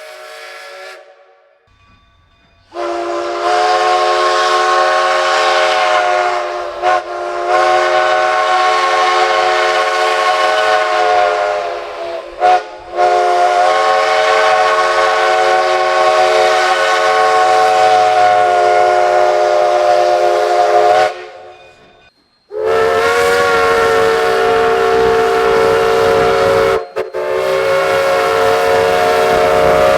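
Steam locomotive's multi-chime whistle sounding a steady chord with steam hiss, in long blasts. The first blast runs almost twenty seconds with two brief breaks; after a short pause come two more long blasts.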